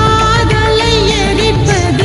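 Tamil film song playing: a voice sings a wavering, ornamented melody over instrumental accompaniment.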